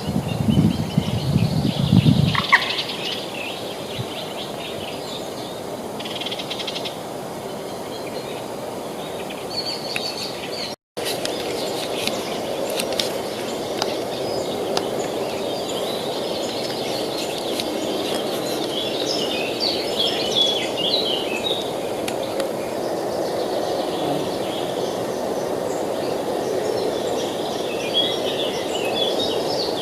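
Steady rush of river water with small birds chirping over it, most busily near the middle and the end. A few low thuds in the first couple of seconds, and the sound cuts out completely for an instant about eleven seconds in.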